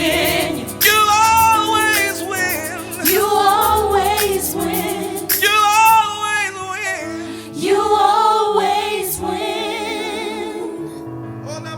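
Live gospel worship music: a singer's long, wavering, ornamented phrases, about every two seconds, over sustained instrumental backing and bass, easing off near the end.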